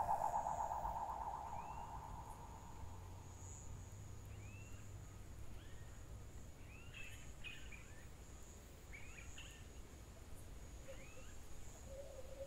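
Faint tropical forest ambience: scattered short bird chirps over a steady high insect drone. A rapidly pulsing hum fades away over the first two seconds.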